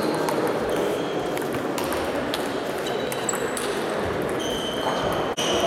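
Table tennis balls ticking off tables and bats during play, a string of short, high, ringing hits about a second apart, over a steady murmur of voices and play in a large sports hall.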